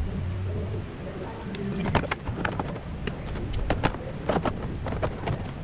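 Irregular clicks, knocks and light clatter of parts being handled during reassembly of the engine's fan and radiator fan assembly, growing busier in the second half. A low rumble sounds in the first second.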